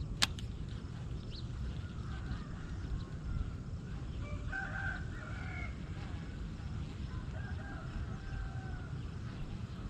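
A rooster crowing, two drawn-out crows in the second half, over a steady low rumble. A single sharp click just after the start.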